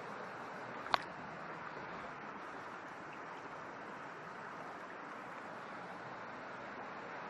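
Steady rushing outdoor background noise, with a single sharp click about a second in.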